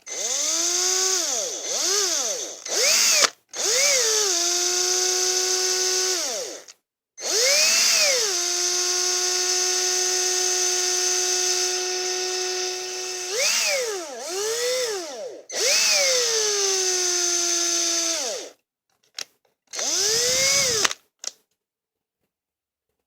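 Small electric drill whining in several runs, speeding up and slowing down between bursts with one long steady stretch, as it slowly drills out the rivet of a die-cast toy car. It stops about 21 seconds in.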